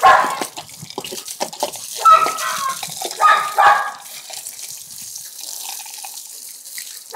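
Water running from a garden hose over a Labrador's coat and splashing onto a wet concrete floor, a steady hiss. A few short bursts of a voice come in during the first half.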